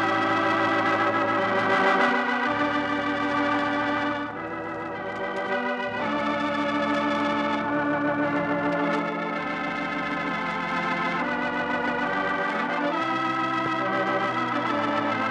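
Organ music closing a radio program, played back from a transcription disc: sustained chords that shift every second or two, dipping a little in loudness about four seconds in.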